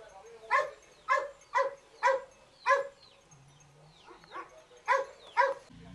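A dog barking: five barks in quick succession, about two a second, then a pause and two more near the end.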